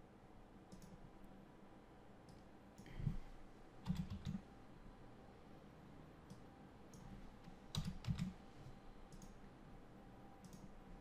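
Faint computer mouse clicks and a few keyboard keystrokes, scattered, with small clusters of louder soft knocks about three, four and eight seconds in.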